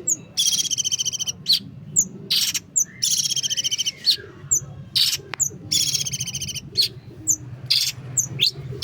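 Long-tailed shrike (pentet) singing its varied mimicking song: three rapid rattling trills about a second long, with short high chips and quick rising and falling whistles between them.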